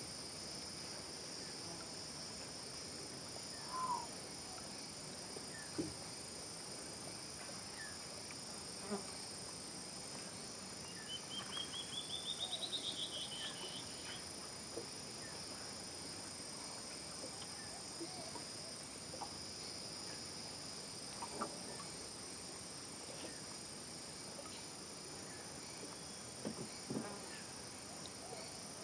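Tropical rainforest insect chorus: a steady, high-pitched buzzing. About halfway through comes a short trill of quick notes rising in pitch, and faint scattered calls and knocks come and go.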